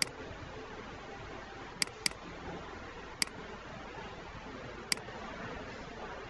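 Computer mouse button clicks: one near the start, a quick double click about two seconds in, then two more single clicks, over a steady faint hiss.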